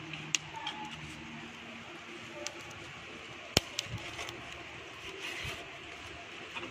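Charcoal brazier with a raan roasting in a wire grill basket over the coals: a faint steady hiss with a few sharp clicks and ticks, the loudest about three and a half seconds in.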